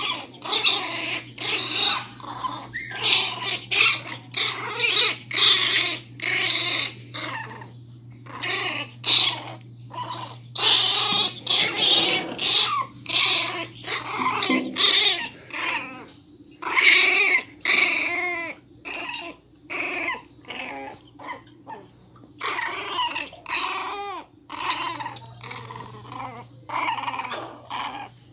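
Miniature pinscher puppies growling in play as they tug at a cloth toy: a long string of short, irregular growls and snarls, with a few higher whining cries about two-thirds of the way through.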